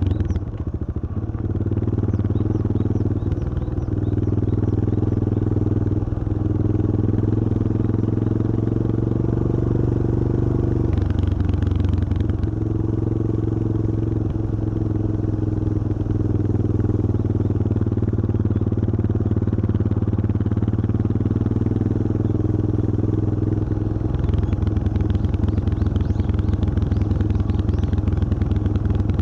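Yamaha XT225 Serow's single-cylinder four-stroke engine running steadily while riding, its note changing a few times, notably about a third of the way in and again near the end.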